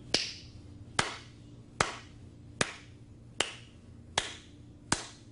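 One person's slow clap: seven sharp hand claps at an even pace, about one every 0.8 seconds, each ringing briefly in the studio.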